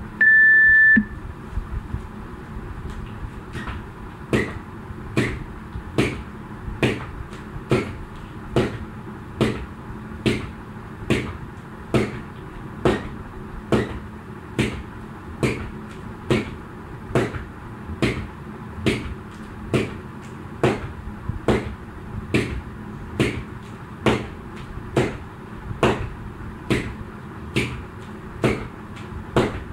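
An interval timer's electronic beep, one steady high tone lasting about a second, at the start. Then a jump rope skipping in an even rhythm: a sharp slap a little faster than once a second.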